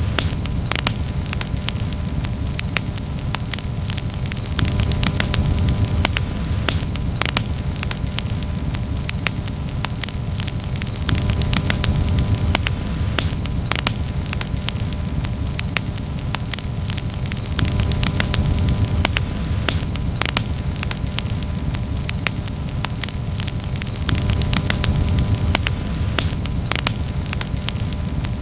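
Campfire crackling, with frequent sharp pops and snaps over a low rumble that swells and fades every few seconds.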